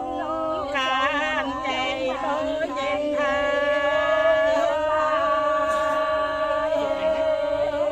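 Voices singing together in a chant-like style, a low note held steadily beneath a higher melodic line; the notes are short and changing for the first few seconds, then long and held.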